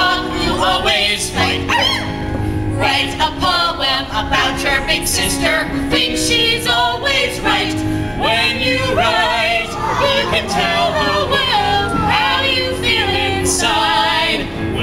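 Two women and a man singing a song together with electric keyboard accompaniment.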